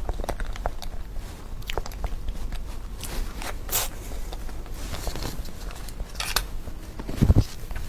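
Close-miked eating of chocolate desserts: bites and chewing with scattered short crackles and clicks, and one heavier low thump near the end.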